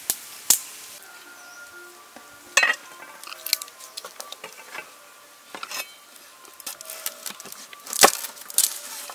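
A cleaver knocking on a wooden chopping board as garlic cloves are cut: scattered sharp knocks and clicks, the loudest a little before the end.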